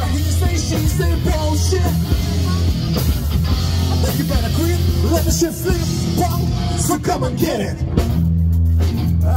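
Rock music with a singer over a steady bass line, played loud.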